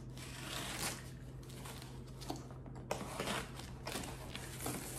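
A small cutter slitting packing tape on a cardboard box, then the cardboard flaps scraping and rustling as they are pulled open, with a few sharp clicks along the way.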